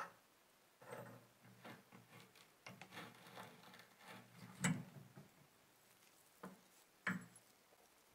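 Rusty brass lighter parts being worked apart by hand with a metal bar: metal scraping and rubbing with a few sharp clicks and knocks, the loudest nearly five seconds in and another about seven seconds in.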